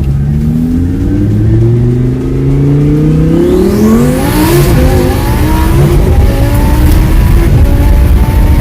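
Twin-turbo Lamborghini Huracán V10 under full throttle on a dyno, revs climbing steadily for about four seconds with a high rising whistle near the middle of the pull, then held at high revs.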